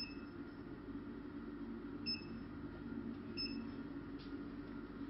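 Short electronic key beeps from a multipolar RF facial machine's touchscreen as its buttons are tapped: one right at the start, another about two seconds in and a third about a second after that, over a low steady hum.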